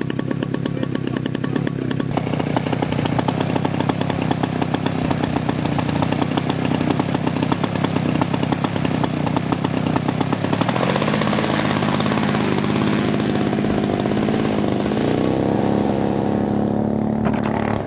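Small piston engine of a large radio-controlled model warplane running steadily, then opened up about ten seconds in, its pitch rising and holding high as the model Spitfire begins its takeoff run.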